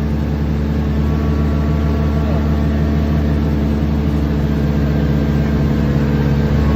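Amphibious duck tour vehicle's engine running steadily under load as it climbs the ramp, heard from on board.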